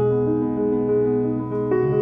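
Grand piano played in a slow passage, held chords ringing on under a moving melody, with new notes struck about a second and a half in.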